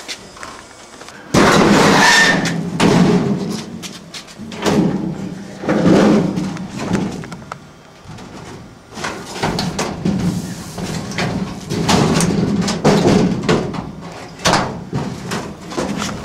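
Sheet-metal return-air duct sections rattling, scraping and banging as they are handled and slid together with cleats, in loud irregular clattering bursts starting about a second in.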